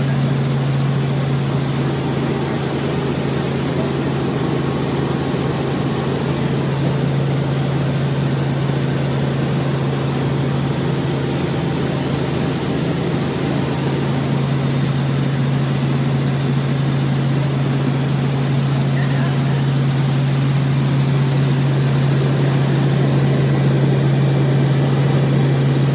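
Helicopter in cruise flight heard from inside its cabin: a steady drone of engine and rotors with a strong low hum.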